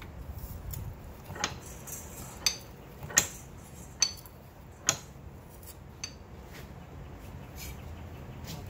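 Steel blacksmith tongs clinking against the jaws of a vise as they are set and squeezed to adjust them: about six sharp metallic clinks with a short ring, roughly a second apart, the loudest about three seconds in.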